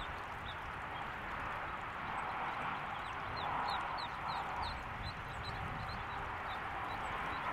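Mallard ducklings peeping: a quick run of short, high peeps, busiest in the middle, over a steady background hiss.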